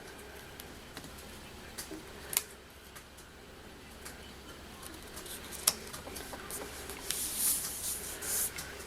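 Cardstock and paper being handled on a craft desk: scattered light taps and clicks, with a brief spell of papery rustling near the end.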